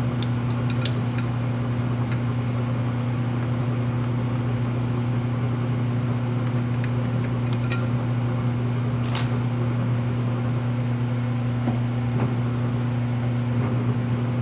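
Metal lathe running with a steady hum, with scattered light ticks and scrapes as a part is worked at the chuck, and one sharp click about nine seconds in.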